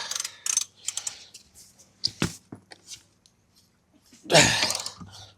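Scattered clicks and knocks of a wrench working at a motorcycle's tight rear axle nut, with one louder, longer noisy burst a little over four seconds in.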